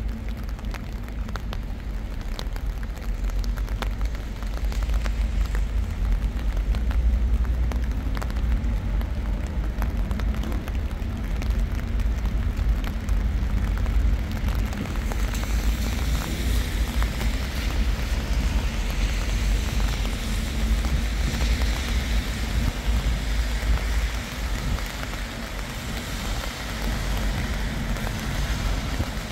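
Steady rain with many drops ticking close by, over a constant low rumble. About halfway through, a hiss grows louder.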